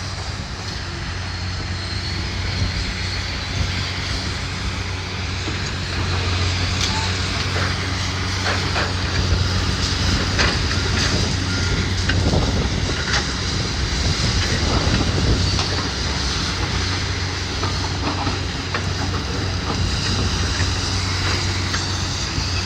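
Heavy demolition machinery's diesel engine running steadily, with scattered knocks and crunches of debris.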